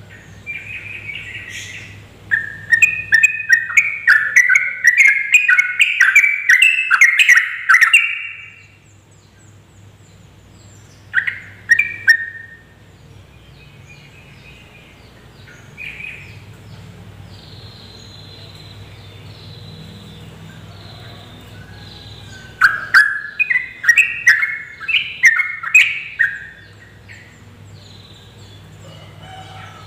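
Yellow-vented bulbul singing in rapid chattering bursts of quick notes (the "ropel" song): a long run in the first third, a brief call near the middle, and another run near the end. A faint low steady hum lies underneath.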